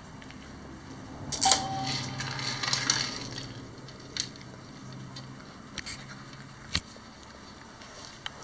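A dog-treat dispenser toy beeps once and hums while treats clatter down into its plastic tray. This is followed by a few single clicks as a small terrier eats from the tray.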